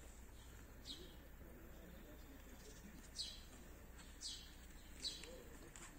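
Bird chirping: four short, high chirps, each a quick downward sweep, spaced one to two seconds apart over a faint background.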